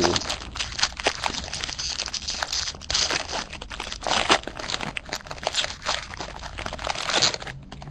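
Foil wrapper of a 2010 Bowman baseball jumbo card pack being torn open by hand, crinkling and crackling. The crackling stops near the end.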